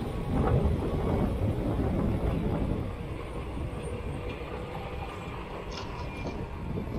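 Caterpillar 955L crawler loader driving on its steel tracks: a diesel engine's rumble with the clatter of the tracks, easing off after about three seconds as the loader moves away. Excavator engines run behind it.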